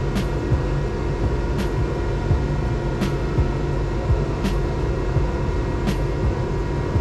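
Steady low machine hum with sharp clicks about every second and a half and soft irregular knocks, as a chisel is worked into the waste of a hardwood dovetail joint.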